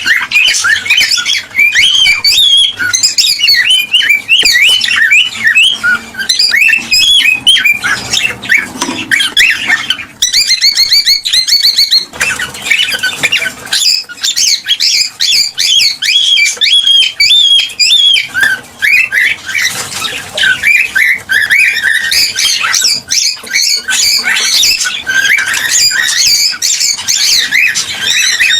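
Cockatiels chirping and squawking without a break, many calls overlapping. There is a rapid run of repeated high notes at about ten to twelve seconds in.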